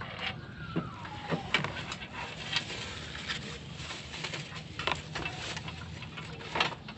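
Plastic wrap crinkling and rustling, with scattered short clicks and knocks, as a portable butane gas stove is handled and unwrapped.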